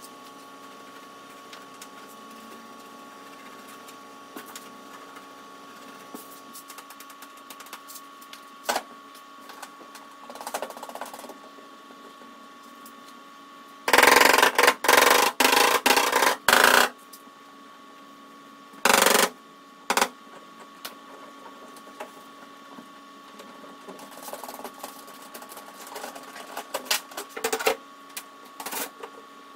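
Hand-held glue-tab dent puller being worked on an aluminium bonnet: a quick run of about six loud, noisy pulls about 14 seconds in, and another about 19 seconds in. A faint steady hum and a few light clicks lie under it.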